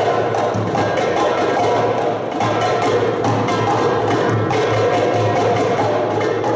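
A gamelan ensemble plays a fast, dense passage. Bronze kettle gongs and metallophone keys ring in rapid strokes over a hand-played kendang drum.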